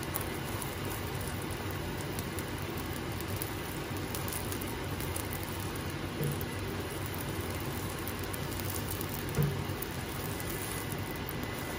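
Egg and tortilla sizzling steadily in oil in a nonstick pan, with a couple of soft knocks from a silicone spatula, about six and nine and a half seconds in.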